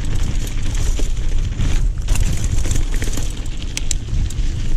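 Mountain bike rolling fast down a rocky dirt trail: a steady low rumble of tyres on loose stone, with scattered clicks and rattles from stones and the bike.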